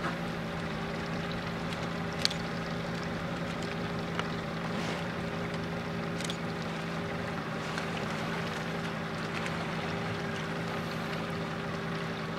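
A boat engine running steadily at idle, an even low hum. A single sharp tick sounds about two seconds in.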